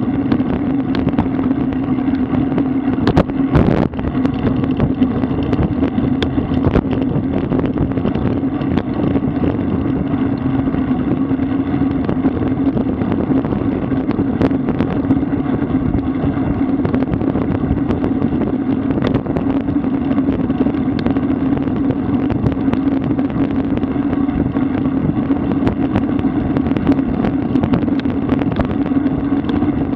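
Wind and road rush on a bicycle-mounted camera's microphone at riding speed: a steady rushing noise with a low drone and scattered clicks and rattles, a small cluster of them about three seconds in.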